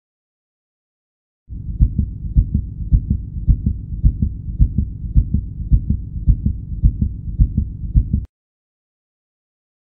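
A heartbeat as heard inside the womb: a muffled, low pulse about twice a second over a steady whoosh. It starts about a second and a half in and cuts off suddenly near the end.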